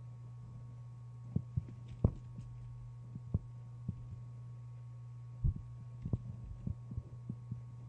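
Computer keyboard keys and a mouse being clicked, heard as irregular dull knocks as numbers are typed into a field, over a steady low electrical hum.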